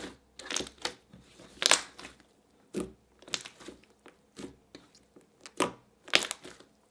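Glossy slime being squished and stretched by hand, giving irregular sticky crackles and squelches, with the loudest about two seconds and five and a half seconds in.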